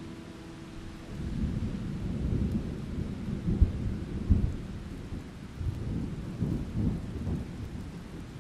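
Thunder rumbling over steady rain, building about a second in, with two loud jolts around the middle.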